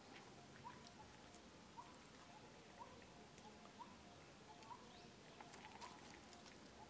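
Near silence with faint, short rising chirps repeating about once a second, and a few soft ticks.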